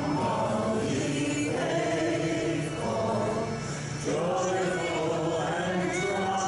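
A small congregation singing a hymn together, holding long notes phrase by phrase over a steady instrumental accompaniment, with a short break between phrases about four seconds in.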